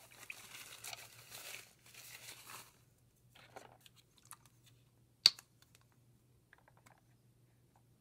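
Crinkling rustle of paper or plastic being handled for about two and a half seconds, then a few small handling ticks and one sharp click about five seconds in.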